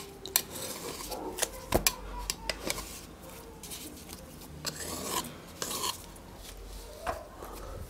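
Knife cutting through a stack of thin baklava phyllo sheets while running along the rim of a round aluminium baking tray: irregular short rasping strokes and light clicks.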